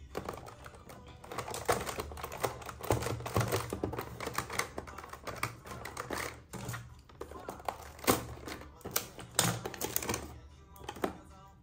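Hands unpacking a small toy, its packaging crinkling with quick irregular clicks and taps, and a few sharper knocks; faint background music underneath.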